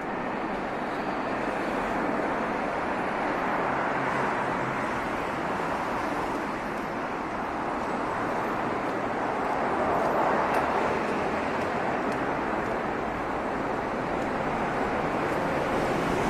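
Steady outdoor street and traffic noise, a constant rushing hiss with no distinct events, swelling a little about ten seconds in.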